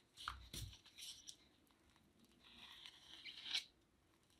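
Faint scraping as a metal ice cream scoop is dragged through thick spackling paste in a plastic tub, loudest just before it stops near the end. A few light clicks and taps come in the first second.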